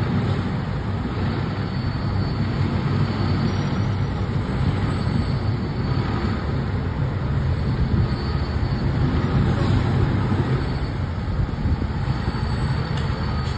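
Fire engine's diesel engine running in a steady low rumble as the truck backs slowly into its station bay.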